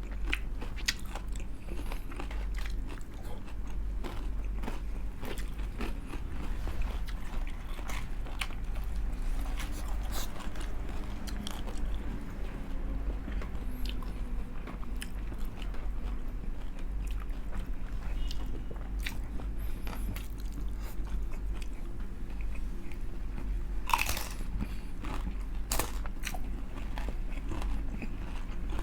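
Close-up crunching and chewing of crispy fried chicken skin: many sharp crunches, the loudest about 24 seconds in, over a steady low hum.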